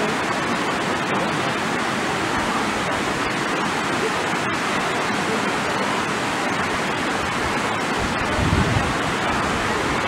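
Hot spring water rushing steadily over the travertine cascades and pools of Saturnia's thermal falls.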